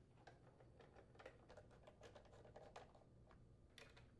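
Faint, irregular clicking of a screwdriver with a nutdriver bit driving in the mounting screws of a Kohler engine's plastic blower housing.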